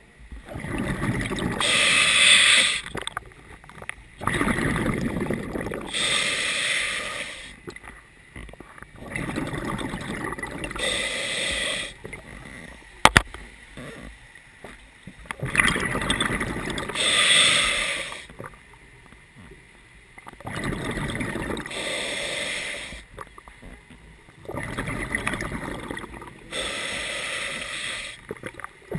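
A scuba diver breathing through a regulator underwater, in a repeating cycle about every five seconds: a hissing inhalation, then a low rumbling rush of exhaled bubbles. There is a single sharp click about halfway through.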